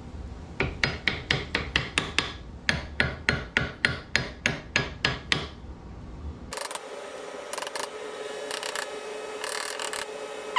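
Mini ball-peen hammer tapping in quick, even blows, about four a second and some twenty in all, stopping about five and a half seconds in. A different sound follows: irregular rasping over a steady hum.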